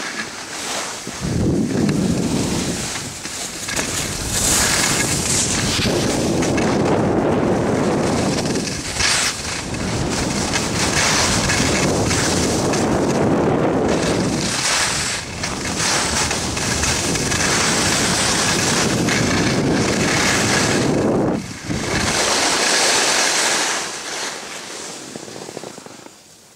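Wind buffeting the microphone of a camera carried by a skier going downhill, mixed with the hiss and scrape of skis on snow. It comes in loud swells that rise and fall every few seconds and eases off near the end.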